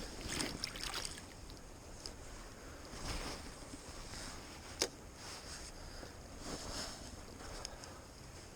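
River water rushing and splashing, with a few louder swells and one sharp click about five seconds in.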